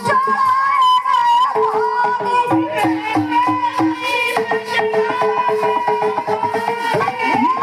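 Indian folk devotional music: a melody of held, pitched notes over steady percussion.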